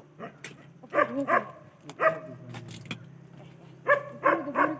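A dog barking in short runs, a few barks about a second in and a quick run near the end, over a steady low hum.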